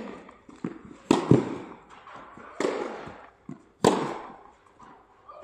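Tennis rally: racket strikes on the ball about every second and a half, each a sharp hit trailing off in an echo, with lighter ball bounces in between.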